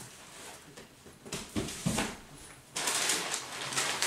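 Cardboard shipping box being handled: a few light knocks and taps, then from just before three seconds in a steady scraping and rustling of cardboard as the carton is pulled open and moved.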